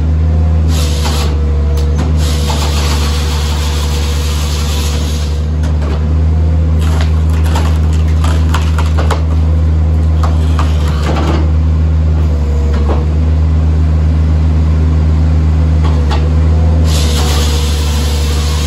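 Skid steer engine running steadily while working a Halverson HWP 120 firewood processor. A loud hydraulic hissing rush comes twice, near the start and again near the end, and in between a run of sharp cracks and snaps as a log is split.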